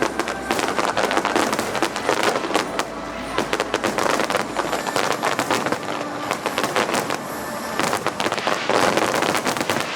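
Aerial fireworks bursting, with dense, rapid crackling and popping throughout.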